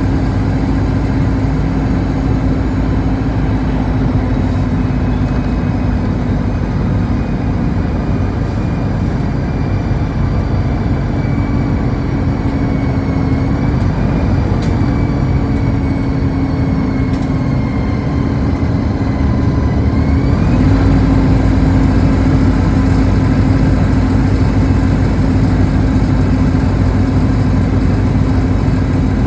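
City bus's engine and tyre noise heard from inside the cabin while it drives at speed: a steady drone. About two-thirds of the way through, the engine note shifts upward and grows slightly louder.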